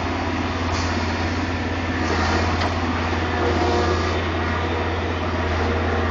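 Caterpillar 225 hydraulic excavator's diesel engine running steadily under working load as the machine swings and dumps dirt from its bucket, a constant low drone. Brief hissing surges come and go about a second, two seconds and three and a half seconds in.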